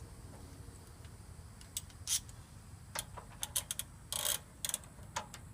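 A spanner and vise grip clicking and clinking against steel as a fitting on a hydraulic loader cylinder is tightened: a dozen or so irregular sharp clicks, with a short scrape about four seconds in.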